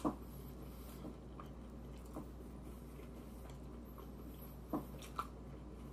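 A person chewing a bite of fish sandwich with the mouth closed: quiet, with a few soft clicks over a low steady hum.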